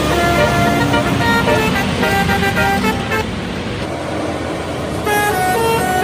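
Bus telolet horn, a set of air-horn trumpets playing a quick tune of stepped notes over road noise. The tune fades and thins out about three seconds in, then a new burst of notes starts about five seconds in.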